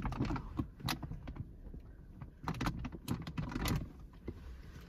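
Irregular rustling and small clattering knocks of trash and loose clutter being rummaged through and gathered up on a car's back seat.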